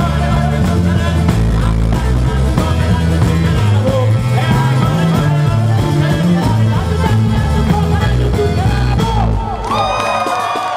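Live pizzica band playing: tamburello frame drum, electric guitars, bass and mandolin under a male singer's voice. The band stops about nine and a half seconds in, and shouting and whistling from the crowd follow.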